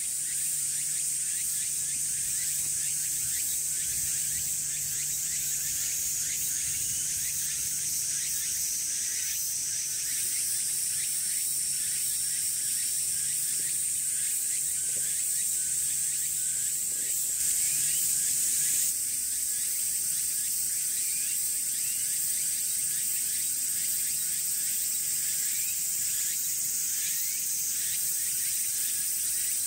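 Cicadas buzzing in a steady, high-pitched summer chorus.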